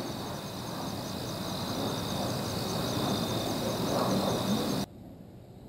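Crickets chirping steadily in thin, high pulses over a steady low rushing background; both cut off abruptly about five seconds in.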